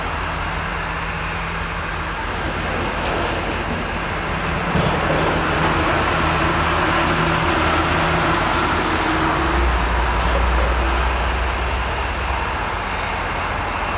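Diesel-electric freight locomotives running while the train stands: a steady low engine drone, with a deeper hum that grows stronger for about three seconds past the middle.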